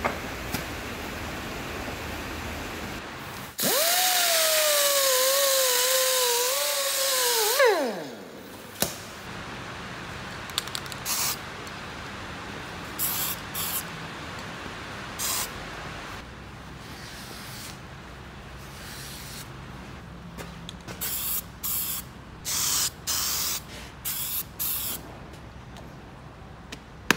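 Angle grinder with a wire wheel running for about four seconds, its pitch sagging under load, then switched off and winding down. After that come short hisses from an aerosol crack-test spray can, many in a row and closer together near the end.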